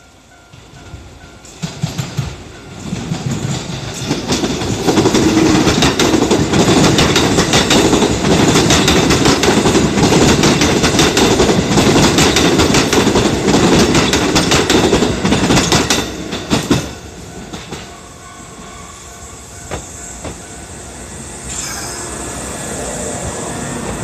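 Kintetsu electric train running past close by over a level crossing, wheels clattering over the rail joints, with a level crossing bell ringing faintly at first. The train noise builds over the first few seconds, stays loud for about twelve seconds, then drops off sharply to a lower rumble.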